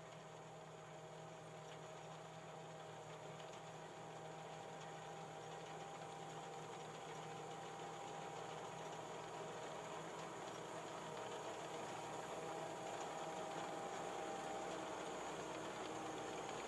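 Tracked rice combine harvester running as it cuts and threshes: a steady mechanical hum with a few held tones, growing slowly louder.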